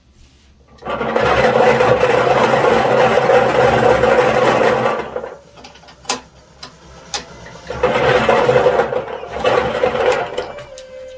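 Small electric lottery ball machine running, its motor humming as the balls tumble and rattle inside. It runs for about four seconds, stops with a few sharp clicks, then runs again for a couple of seconds.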